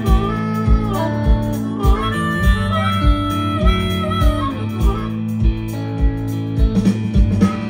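Live rock band with a harmonica solo played over electric guitars, bass guitar and drums; the kick drum thumps on a steady beat.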